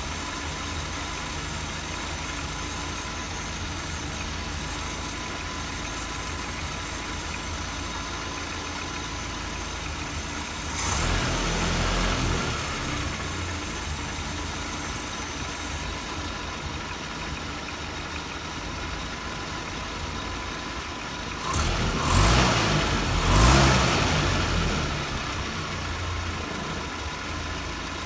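Land Rover Series 3's 2.25-litre four-cylinder petrol engine idling steadily, then blipped by hand at the Weber carburettor: a short rise about ten seconds in, and a couple of stronger revs up and back down near the end. The engine picks up without hesitating after a dose of carb cleaner, though its owner thinks it is still running a bit rich.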